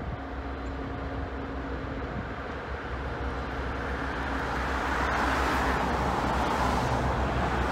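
Diesel locomotives approaching on the track, led by Clinchfield Railroad units: a steady low engine hum with rumble and rushing wheel noise that grows louder over the last few seconds as the train comes closer.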